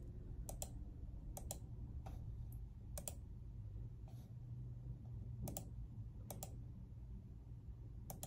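Faint clicks of a computer mouse paging through photos, scattered every second or so and often in quick pairs, over a low steady hum.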